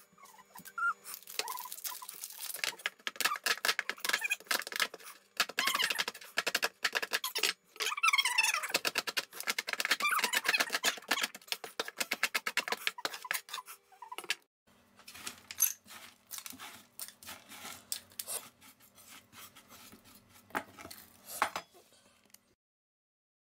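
Cleaver chopping white chocolate on a wooden chopping board: rapid sharp knocks of the blade on the wood, with squeaks around the middle. After about 14 seconds the knocks become sparse and quieter over a faint steady hum.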